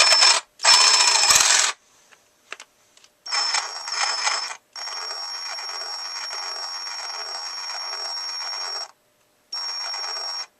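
Ryobi P513 18-volt cordless reciprocating saw running in separate trigger pulls, with a high steady motor whine. Two short, loud full-speed bursts come in the first two seconds, then longer, quieter runs at low trigger speed, about as slow as the saw will go.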